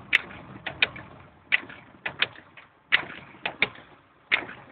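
Sharp clicks and knocks inside a moving car's cabin, often in close pairs, about one to two a second and spaced unevenly.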